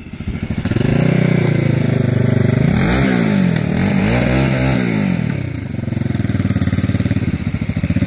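Motorcycle engine running and being revved in place. The pitch rises and falls in two revs in the middle, eases off, then picks up again near the end.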